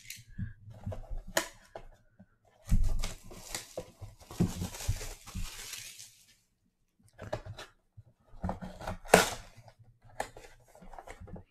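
Cardboard trading-card mega box being handled and torn open, with rubbing, tapping and tearing in irregular bursts. The sharpest, loudest rip comes near the end.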